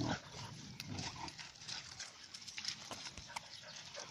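Footsteps and dogs' paws on a pebbly gravel riverbank: irregular crunching and clicking of loose stones.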